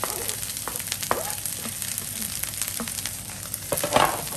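Fried rice sizzling in a frying pan while being stirred, with a steady hiss and irregular scrapes and clicks of the utensil against the pan, a louder scrape near the end.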